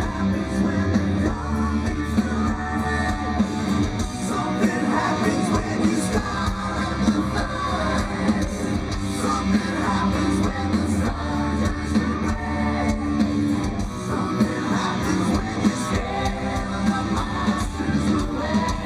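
Live hard rock band playing loud through a festival PA: a singer over distorted electric guitars, bass and a drum kit with a steady kick-drum beat.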